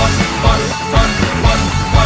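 Rock band music with a steady drum beat of about two kicks a second.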